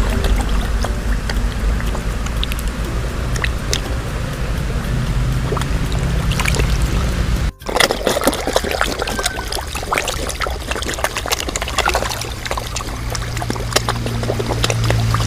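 Water pouring and splashing in a koi pond, full of small drips and splashes, with music underneath. The sound breaks off for an instant about halfway through and resumes.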